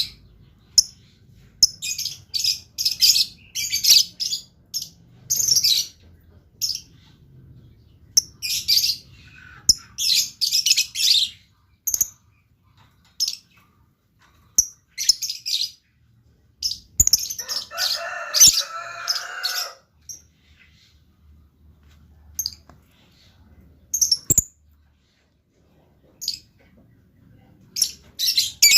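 Lovebirds chirping in rapid, shrill, short bursts, with a longer, lower chattering call a bit past halfway and a few sharp clicks; the chirps thin out to occasional single notes in the last third.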